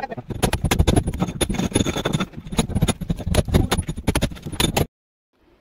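Hammer driving a steel chisel into a brick wall to cut a groove: a fast run of sharp hits, about four or five a second. The blows stop suddenly near the end.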